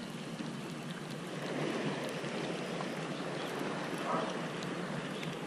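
Steady, even noise of sea water lapping, with no distinct events.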